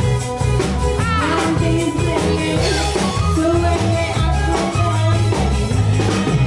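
Live band playing an upbeat song with a steady beat: electronic keyboard, electric bass guitar and drum kit, with women singing into microphones.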